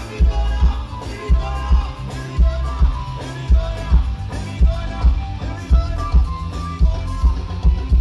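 A live band plays through the stage PA during a sound check. A heavy kick-drum and bass beat lands a little under twice a second, with a melody above it.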